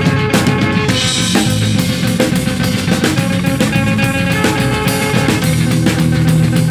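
Acoustic-electric bass guitar played fast and hard with the right hand, giving a driving, percussive rhythm over low notes that sounds close to a drum beat.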